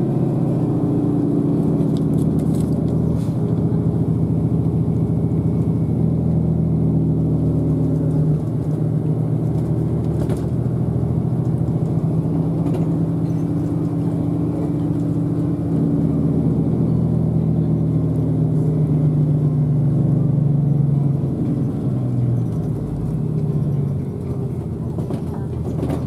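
Route bus engine and running noise heard from inside the cabin as the bus drives along a winding mountain road, a steady low drone whose pitch rises and falls with the engine speed, easing off a little near the end.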